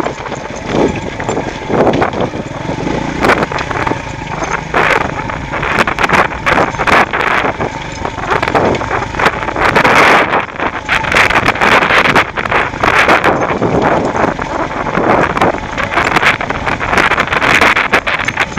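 Beta Alp 200 trail motorcycle running down a rocky green lane, its engine under wind noise on the microphone. Frequent knocks and rattles come through as the bike jolts over loose stones.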